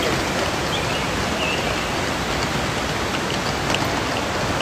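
Steady rush of falling water from a waterfall, with a few faint short high chirps over it.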